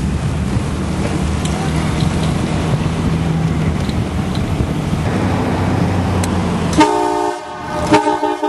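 Jeep Cherokee driving, its engine and road noise a steady rumble. Nearly seven seconds in, an aftermarket air train horn fed from a 150 psi tank sounds loudly, two blasts close together.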